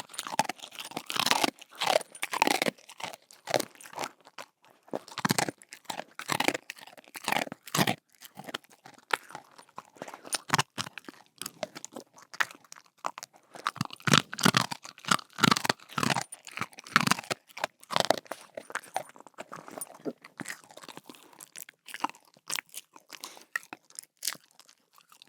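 A dog chewing a bone treat: irregular crunching bites, several a second, with short pauses between bouts.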